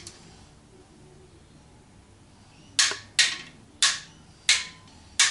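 Click-type torque wrench clicking off on the RB25DET's main bearing cap bolts, five sharp single clicks about half a second apart starting about three seconds in. This is a second pass over bolts already torqued to 48–52 N·m, so each bolt clicks at once.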